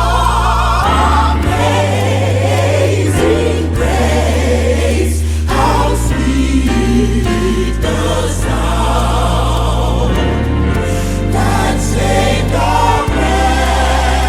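Music with singing voices over long held bass notes that change every second or two.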